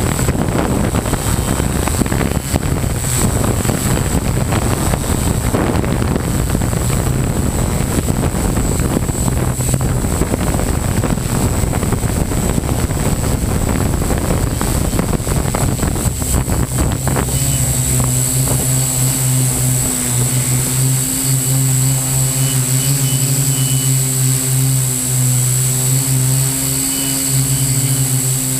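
Model hexacopter's electric motors and propellers droning close to the onboard camera, mixed with a rushing, wind-like noise. About 17 seconds in, the rush drops away and the drone settles into a steady hum with a high whine, as when it slows to a hover.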